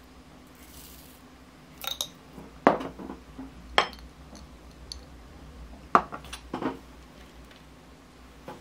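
A metal spoon clinking against a ceramic bowl as rolled oats are spooned in, and glass jars knocking as they are set down on a wooden worktop. About five separate sharp clinks and knocks come a second or so apart.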